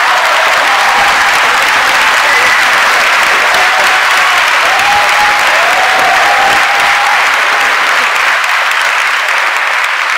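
Large audience applauding loudly and steadily, with a few voices calling out over the clapping.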